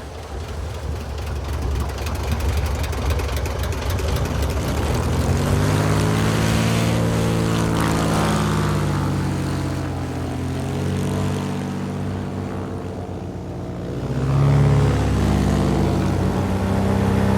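Large airboat's 1947 Lycoming six-cylinder aircraft engine and propeller running hard, the engine note rising and falling several times as the throttle or distance changes.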